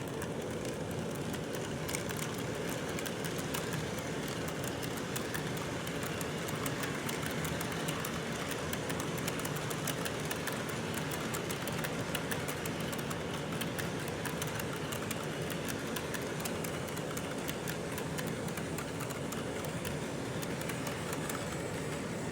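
Model train running steadily along its track, a continuous mechanical running sound with many small, quick clicks over it.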